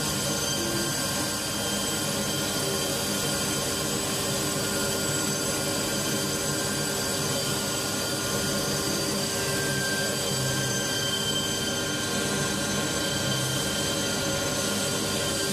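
CNC milling machine's spindle and cutter machining an insole blank: a steady whine of several high tones over constant noise.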